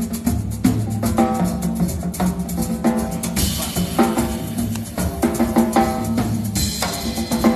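Drum kit played alone in a fast, dense pattern of bass drum, snare and ringing toms, with cymbal crashes about halfway through and again near the end.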